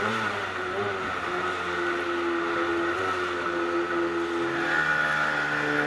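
Outboard jet motor pushing an inflatable boat up a whitewater rapid: a steady engine note over the rush of white water. The engine note steps down to a lower pitch about three-quarters of the way through.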